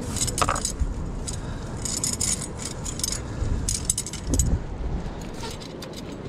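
Metal wire hoops of a stainless-steel cliff gaff clinking and rattling against each other as it swings on its rope, in irregular light clicks, over a steady low rumble.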